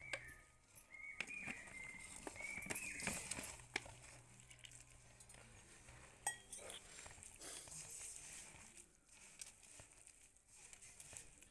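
Faint rustling and soft clicking of a hand working sliced onions into ragi flour and gram flour in a steel bowl. Faint high-pitched calls sound in the background over the first few seconds.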